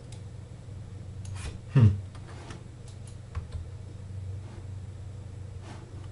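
A few scattered clicks from a computer mouse and keyboard over a steady low hum, with a brief falling 'hm' from a man's voice about two seconds in.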